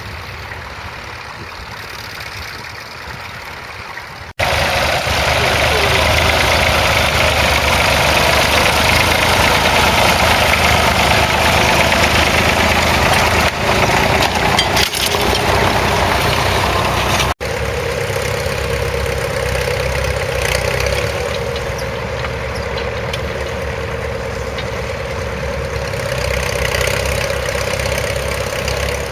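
Vintage crawler tractor engines running under load while ploughing, in three cut-together takes: a quieter one, then a much louder close pass, then a steady running engine.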